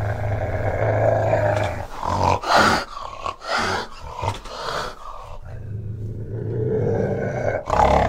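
An animal growling: a low rumbling growl, broken in the middle by several short harsh bursts, then a second long growl.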